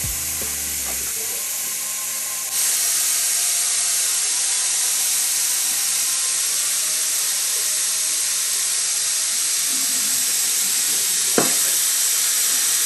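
Air hissing steadily through a motorcycle tyre valve, as the tyre pressure is being dealt with. The hiss gets louder about two and a half seconds in, and there is a short click near the end.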